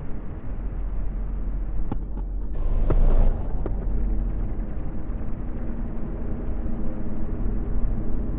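Deep rumbling drone of a slowed, time-stretched 'space sound' soundscape, with faint steady tones held underneath. About two seconds in comes a brief, louder noisy swell lasting a second or so before the rumble settles back.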